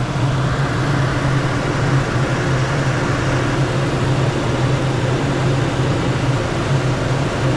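2022 Toyota Tacoma engine idling steadily with a low, even hum, just after its first oil change. Heard from underneath the truck.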